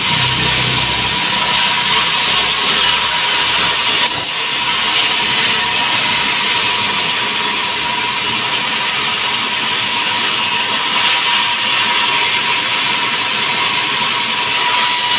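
Sawmill band saw running and cutting through a log: a steady loud hiss with a constant whine under it, and a single knock about four seconds in.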